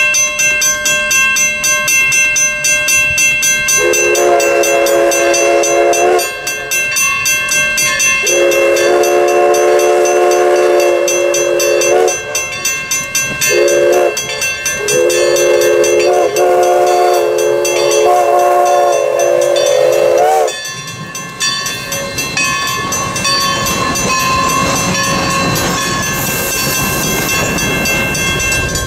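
Steam whistle of Everett Railroad's Alco-built locomotive No. 11 blowing the grade-crossing signal, long, long, short, long, the last blast wavering in pitch, over a bell ringing steadily. After the last blast the train passes close by with a heavy rumble and rattle of the coaches.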